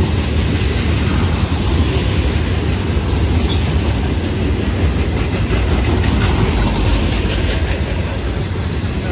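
Steel-wheeled open hopper cars of a Florida East Coast Railway rock train rolling past close by: a steady, loud rumble of wheels on the rails.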